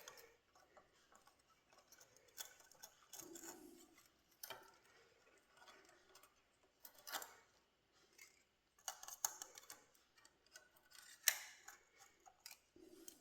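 Faint, scattered clicks and taps of small metal hydraulic pump parts being handled: plungers fitted with O-rings and Teflon washers being dipped in oil. The sharpest click comes a little after eleven seconds.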